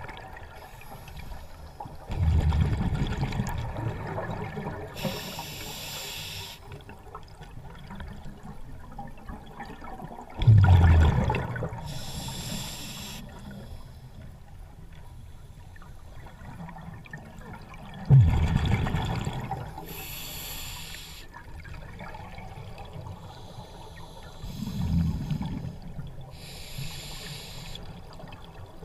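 Scuba diver breathing through a regulator underwater: slow breaths, each a short hiss of inhaling and, some seconds later, a louder rumble of exhaled bubbles, about four breaths in all.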